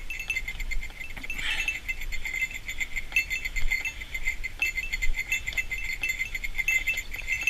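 Light metallic jingling, like a small bell, ringing on and off irregularly.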